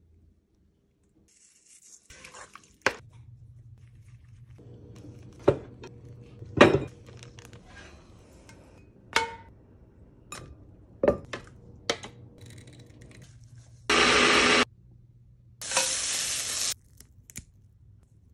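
Kitchen cooking sounds: a spoon stirring and clinking in a stainless steel bowl of seasoned raw shrimp, and scattered knocks of utensils on cookware over a low steady hum. Near the end come two loud stretches of sizzling, about a second each, that cut in and out abruptly.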